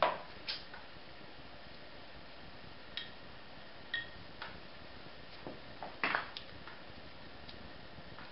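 A nylon cam buckle strap being handled and threaded: scattered light clicks and taps of its metal buckle and hook, one a short ringing ping about four seconds in and a quick cluster of knocks about six seconds in, over a steady background hiss.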